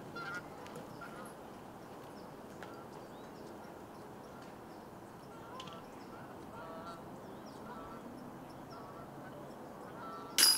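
Geese honking now and then, a few short calls over outdoor background noise. Near the end comes a sudden loud clank that keeps ringing.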